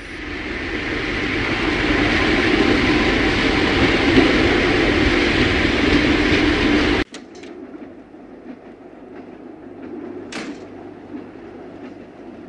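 A train passing, its rumbling rush building up to a loud steady noise that cuts off abruptly about seven seconds in. It is followed by the quieter, steady rumble of a train running, with a few faint clicks.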